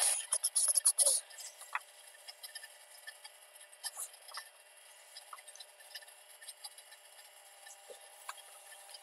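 Scroll-sawn wooden rose pieces being handled and set down on a paper template on a wooden bench: a quick run of clacks and paper rustle in about the first second, then faint scattered taps and rubbing.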